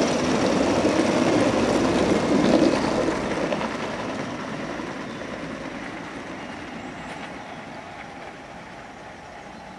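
Gauge 1 model train running past close by: the rumble and clatter of its wheels on the rails, loudest in the first three seconds, then fading steadily as it runs away.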